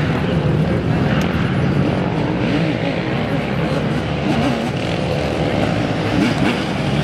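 Racing ATV engines running hard under load on a dirt climb, their pitch wavering up and down as the riders work the throttle.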